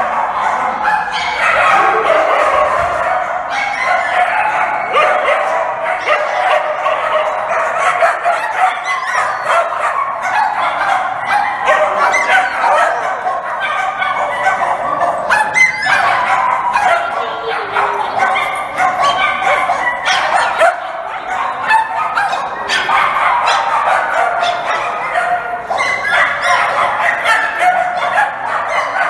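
A pack of dogs barking over one another, a dense, unbroken din of many overlapping barks.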